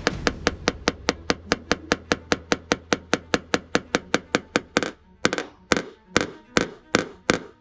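Hammer tapping on a paintless dent repair knockdown tool against a car body panel, the tapping used to knock down high spots. Even, quick taps at about five a second slow to about two or three a second about five seconds in, when a low hum underneath stops.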